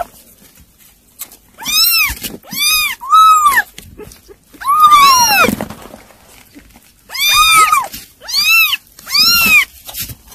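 Weaning-age kittens mewing over and over: about seven short, high-pitched mews that rise and then fall in pitch, with a longer, drawn-out one near the middle.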